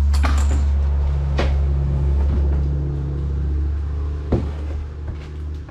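A fiberglass boat panel being lifted and flipped over on a workbench, knocking against it near the start, about a second and a half in, and once more a little after four seconds, over a steady low rumble.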